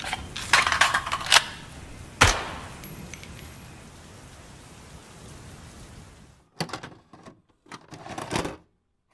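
Rustling, knocking noises with a sharp thump about two seconds in, over a steady hiss; near the end, short crackling bursts cut in and out and then the sound stops dead.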